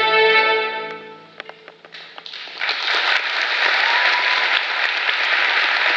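String orchestra holding its final chord, which dies away about a second in. A few scattered claps follow, then audience applause breaks out and keeps going.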